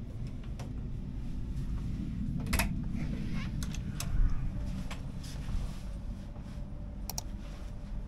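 Steady low rumble of a ship's interior, with a few sharp clicks and knocks as a cabin door is handled and opened, the clearest about two and a half and four seconds in and another near the end.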